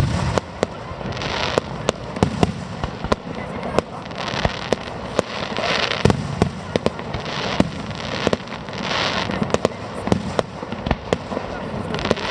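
Aerial fireworks display going off: a continual run of sharp bangs from bursting shells, with short hissy bursts between them every second or two.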